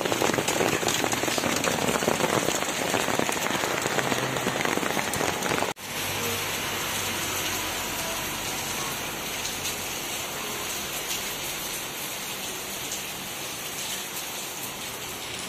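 Heavy rain pouring down and pattering on wet concrete steps and surfaces, a dense steady hiss of many drops. It breaks off for an instant about six seconds in, then carries on a little quieter.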